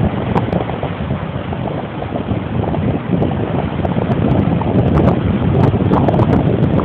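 Wind buffeting the microphone in loud, uneven gusts, over surf breaking on the shore.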